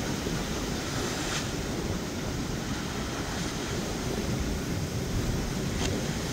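Wind buffeting the microphone over rough, choppy water, with waves washing and splashing steadily; two brief hissing splashes stand out, about a second and a half in and near the end.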